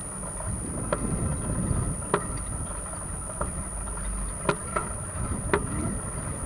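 Bicycle ride heard through a bike-mounted action camera: a low rumble of wind and road, with a sharp click or rattle from the bike about once a second.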